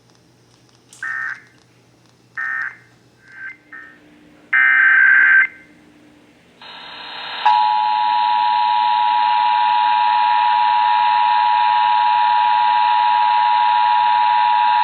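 Emergency Alert System digital data bursts: three short, shrill warbling squawks in the first four seconds, then a longer, louder one about five seconds in. About seven seconds in, the EAS two-tone attention signal starts and holds steady, 853 Hz and 960 Hz tones sounding together.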